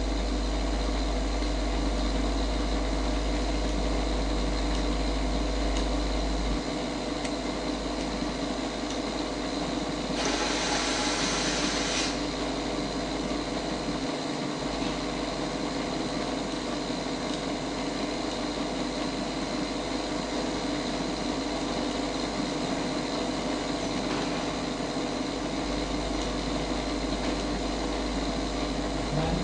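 MK Mini vacuum casting chamber running with a steady machine hum, its vacuum pump and mixer working during a casting. About ten seconds in there is a hiss lasting about two seconds.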